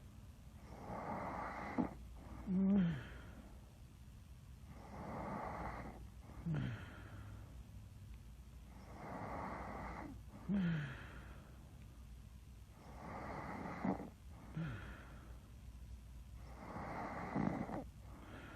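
A person snoring in slow, regular cycles about every four seconds. Each cycle is a long rasping breath followed by a short throaty grunt that drops in pitch.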